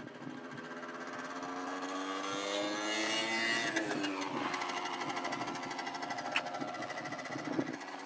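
Small motorcycle or scooter engine passing by: its buzz gets louder and rises in pitch, then drops in pitch as it goes past about four seconds in, and keeps running as it moves off.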